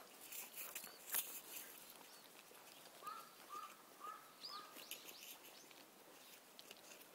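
Faint outdoor ambience with a few light clicks in the first second or so. About three seconds in, a bird calls four short, evenly spaced notes, followed by a single higher chirp.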